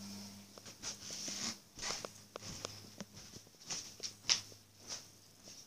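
Faint, scattered rustles and light scrapes from handling paper props and the camera, over a low steady hum.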